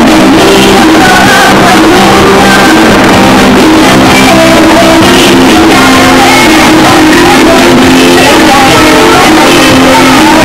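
Loud music with singing over steady held low notes.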